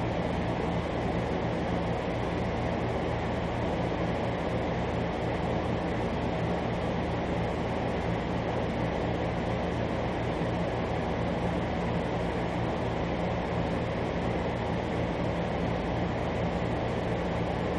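Room air conditioner running: a steady whoosh with a low hum underneath, unchanging throughout.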